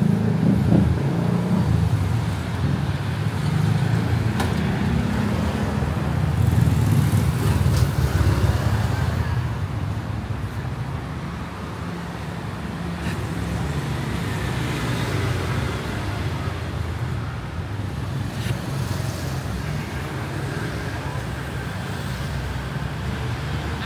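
Street traffic: a continuous engine-and-tyre rumble of passing vehicles, louder over the first eight or nine seconds and then easing to a steadier background hum.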